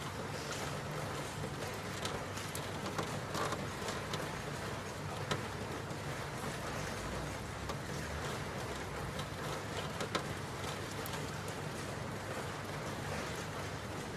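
Steady rain falling, with scattered individual drops ticking through the hiss.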